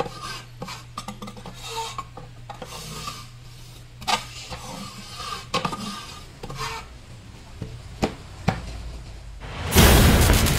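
A wooden stick scraping and raking wood shavings out of a wooden chip compartment, in irregular strokes with a few sharp knocks of the stick against the box. Near the end a loud rushing noise cuts in suddenly.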